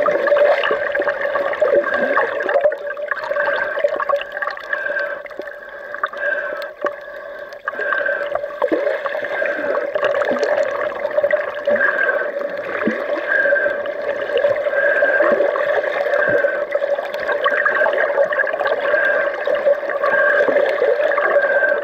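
Underwater sound picked up through an action camera's waterproof housing: muffled water movement and gurgling with a steady hum and scattered faint clicks.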